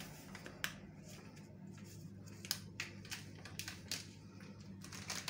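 Milk simmering in a steel pan, giving faint irregular pops and ticks, with a steady low hum beneath.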